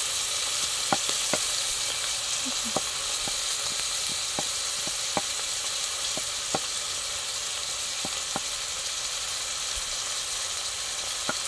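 Chopped onions frying in hot oil in a metal pot (sufuria): a steady sizzle with scattered sharp pops and clicks.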